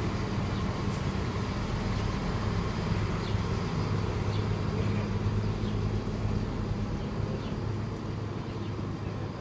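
Siemens Desiro diesel railcar pulling out of a station, its diesel engines running with a steady low drone that eases slightly near the end as the train draws away.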